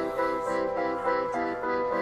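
Background music: a keyboard or piano-like melody of short, evenly paced notes.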